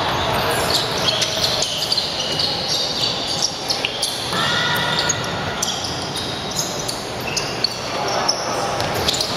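Ball game on an indoor court: a ball bouncing on the hall floor, with short high squeaks and players' voices echoing in the hall.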